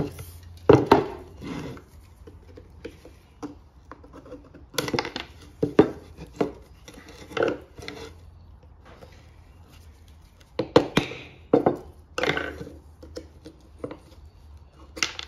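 Irregular knocks and metal clinks of a piston and connecting rod, screwdrivers and loose piston rings handled and set down on a wooden workbench, while seized rings are being worked off an old piston.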